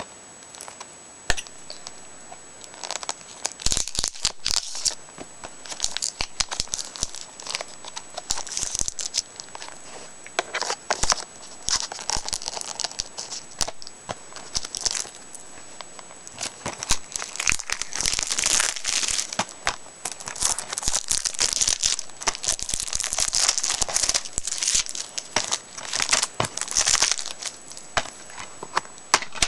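Plastic shrink-wrap on a DVD case being torn open and crinkled off: a long, irregular stretch of crackling and tearing with many sharp clicks, busier in the second half.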